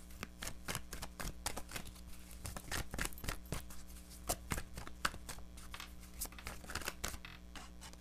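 Tarot cards being shuffled by hand: a continuous run of quick, irregular soft card flicks and slides.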